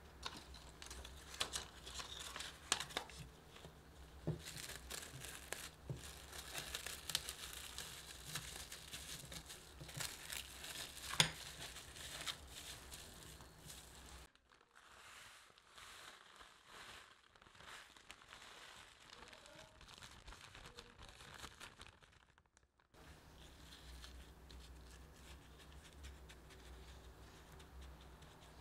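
Plastic cling wrap crinkling and crackling as it is stretched and smoothed around the base of a metal mousse ring, with one sharp crack standing out; the crinkling becomes sparser and quieter in the second half.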